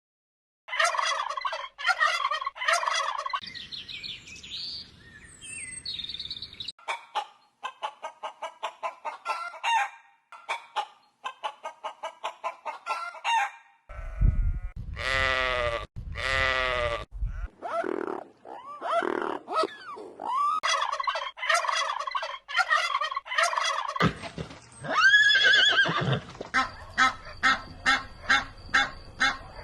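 A succession of different animal calls: runs of rapid pulsed calls, with a stretch of loud, pitched, sweeping calls about halfway through.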